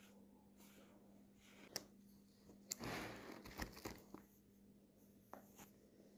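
Thick paper pages of a handmade junk journal rustling and flapping as it is leafed through, with a short swish about three seconds in and a few light clicks and taps from the pages and embellishments. A faint steady hum runs underneath.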